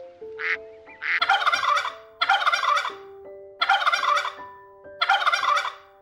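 Wild turkey toms gobbling four times, each gobble under a second, over soft background music. A single short duck quack comes near the start.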